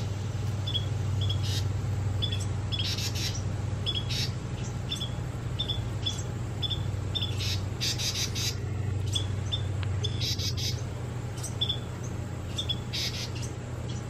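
Carolina wrens calling: a steady run of short, high chip notes about two a second, broken every second or two by harsh, raspy chatters, over a steady low hum.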